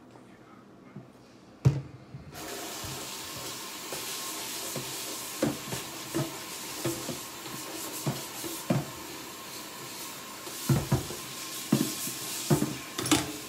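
Kitchen sink tap turned on a couple of seconds in and left running, with dishes and utensils knocking and clinking as they are washed up.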